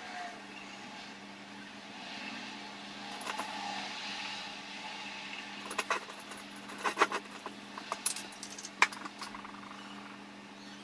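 Sharp clicks and taps of small makeup items being handled, clustered from about six seconds in, over a low steady hum and a soft rush of noise that swells and fades.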